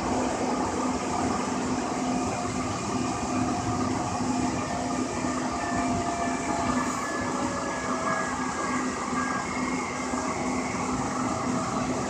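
Interior running noise of a Siemens S200 light-rail car in motion: a steady rumble of wheels on rails with a constant low hum, and faint higher whines that come and go.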